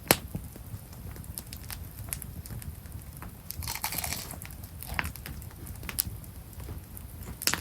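Campfire crackling with scattered sharp pops, and a person crunching and chewing food, with one longer crunch about four seconds in.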